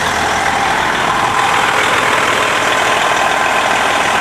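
2006 Freightliner Century's Detroit Diesel Series 60 inline-six diesel engine idling steadily.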